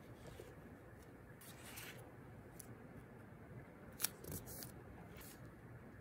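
Faint paper handling: notebook pages and sticker sheets rustling under the hands as stickers are pressed down, with one sharp tick about four seconds in as a page is lifted.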